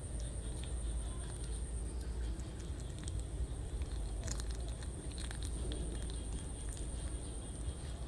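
Kitten chewing small boiled fish, a run of many small wet clicks and crunches at an irregular pace. A steady high-pitched whine runs underneath.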